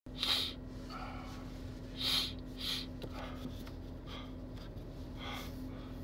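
Short, sharp, noisy breaths of a person with a cold: three in the first three seconds and a fainter one near the end, the catching breaths that come before a sneeze. A steady low hum runs underneath.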